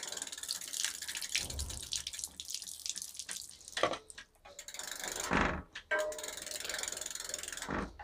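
Water splashing onto a spinning bicycle's rear disc brake rotor and caliper while the rear hub's freewheel ticks, with a few sharper knocks in the second half. The rotor is being washed with water while the brake is applied to clear oil that causes the brake to make noise.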